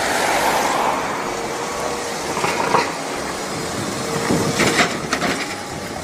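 Double-decker city bus driving and turning in street traffic, its engine running under a steady wash of traffic noise.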